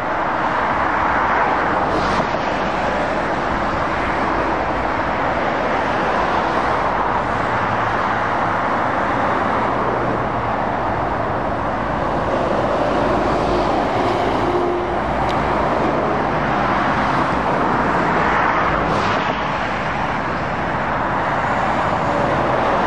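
Steady traffic on a dual carriageway: heavy lorries and cars passing continuously, a constant tyre noise on the road with diesel engines running beneath it.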